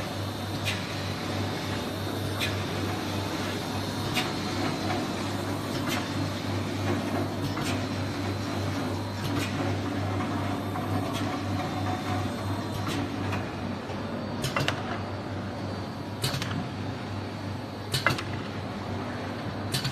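UV coating machine with an automatic sheet feeder running: a steady low motor hum, with a sharp click about every 1.7 seconds as the feeder cycles.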